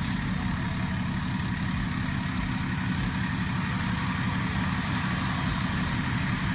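Fire engine's diesel engine running with a steady low rumble.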